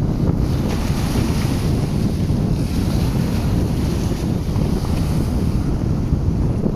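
Sea waves breaking and washing in, with wind buffeting the microphone as a steady low rumble. The hiss of a wave's wash swells about half a second in and dies away near the end.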